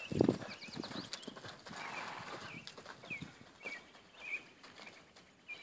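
Horse loping on the dirt footing of a round pen, its hoofbeats falling in an uneven rhythm, with a short high chirp recurring about every half second.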